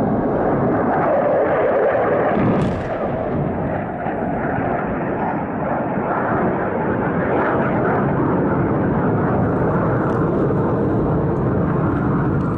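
Airstrike on a town: a long, steady rumbling roar of a bomb blast and a warplane, with one sharp crack about three seconds in.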